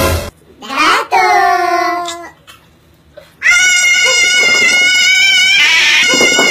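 A sudden loud burst, then a voice crying out with falling pitch. After a short quiet gap comes a long, shrill, high-pitched wavering scream.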